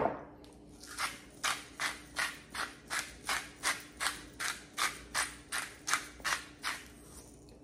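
Hand pepper mill grinding black pepper, a short grinding rasp with each twist, about three twists a second. It starts about a second in and stops shortly before the end.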